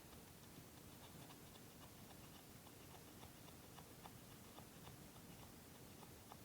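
Very faint, scattered small scratches and ticks: a screwdriver tip with sandpaper scraping the dome light's rivet contacts clean.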